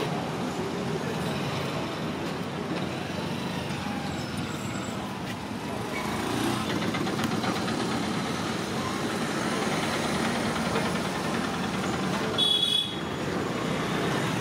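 Steady roadside traffic noise, with a short high horn toot near the end.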